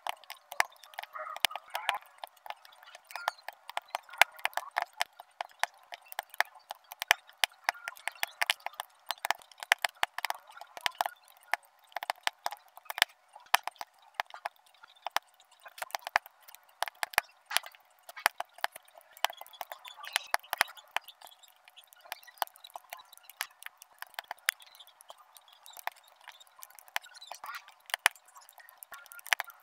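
Quick, irregular clicking and tapping of small square resin diamond-painting drills as tweezers pick them up and press them onto the adhesive canvas.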